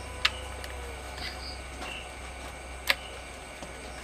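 Two sharp clicks of a plastic power bank case being handled, about two and a half seconds apart, over a low steady hum.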